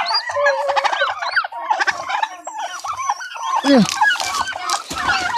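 Newly hatched turkey poults peeping in a dense chorus of short rising chirps. A lower falling call from an adult turkey comes about three and a half seconds in, and straw rustles near the end.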